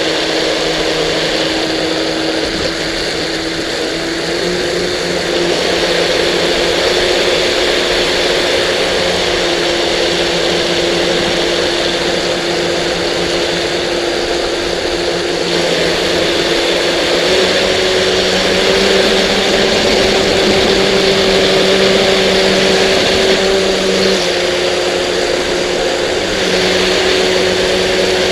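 Fast Electric Mean Machine RC boat's electric motor whining steadily at low speed, heard up close from the camera mounted on the boat, over a steady hiss. The whine's pitch creeps up in small steps through the run.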